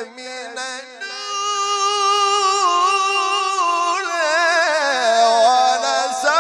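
A male Qur'an reciter's solo voice in melodic recitation in maqam Nahawand. He holds a long, wavering ornamented note, steps down in pitch, then leaps back up near the end.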